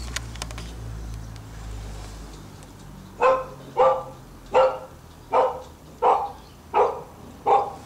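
Dog barking repeatedly, a bark about every three quarters of a second, starting about three seconds in, after a couple of sharp clicks at the start.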